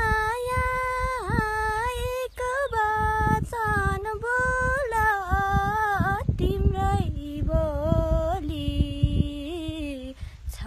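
A girl singing a Nepali folk song unaccompanied, in the style of the Gaine (Gandharva) songs, holding long notes that bend and slide between syllables. The melody sinks lower after about seven seconds and breaks off briefly just before the end, over a low rumbling noise.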